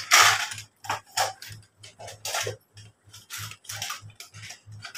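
Plastic pencil boxes and school bags being handled: irregular rustling, clicks and knocks of plastic as the boxes are pulled out of the bags and lifted up.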